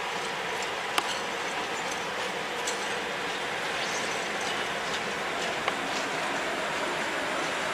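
ET22 electric locomotive rolling past on the track: a steady rush of wheel and rail noise with a few sharp clicks, the loudest about a second in.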